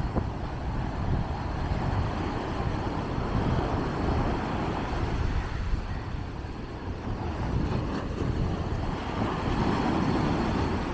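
Rough surf breaking and washing up a sandy beach: a steady rushing with a heavy low rumble, swelling again near the end as a wave breaks close by.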